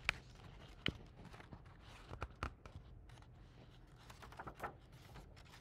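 Pages of a hardcover picture book being turned and handled: faint paper rustling with a few light clicks and taps.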